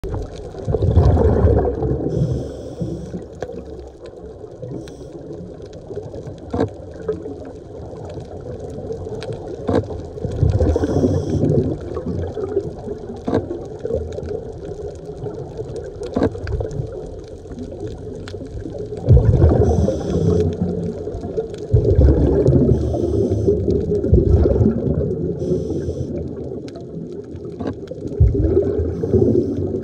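Underwater recording of a scuba diver's regulator: bursts of exhaled bubbles gurgling every several seconds, with patches of inhalation hiss between them and scattered sharp clicks.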